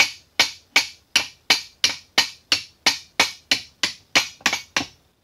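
Hammer tapping steadily on a metal drift to drive a bearing along the shaft of a 1940s Sheldon lathe's compound slide, pushing out its woodruff key. About fifteen sharp, ringing metal-on-metal strikes at about three a second, stopping shortly before the end.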